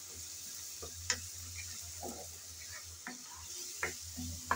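Shrimp and spice masala, loosened with a little water, sizzling in a metal pan as it is cooked down, while a wooden spatula stirs it and scrapes and knocks against the pan about five times.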